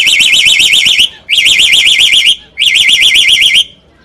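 A caged black-collared starling mimicking a car alarm after its key fob is pressed. It gives three bursts of about a second each of a loud, fast-warbling siren tone, with short pauses between them.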